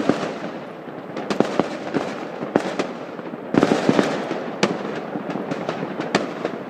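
Fireworks and firecrackers going off all over a town at once: a continuous crackle and rumble with frequent sharp bangs, loudest in a cluster of bangs about halfway through.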